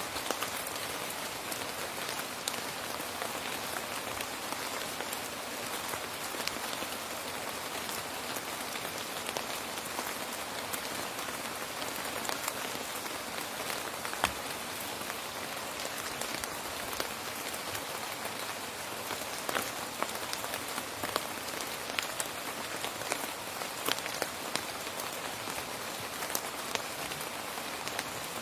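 Steady rain falling on a surface, an even hiss dotted with many sharp, distinct drop ticks, one louder drop about 14 seconds in.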